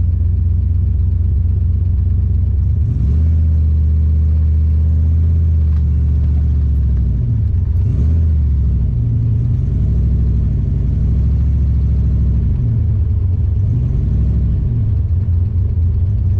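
Turbocharged 331 small-block Ford V8 of a Fox-body Mustang, heard from inside the cabin while the car is driven at low speed. The engine note steps up about three seconds in, then rises and falls several times with the throttle.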